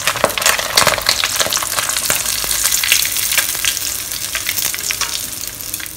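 Hot oil sizzling and crackling around egg tofu shallow-frying in a wok, dying down near the end as the tofu is lifted out of the oil.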